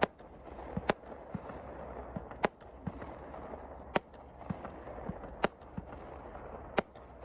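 Fireworks going off: six sharp cracks about a second and a half apart, with softer, duller thumps and echoes between them, over a steady background noise.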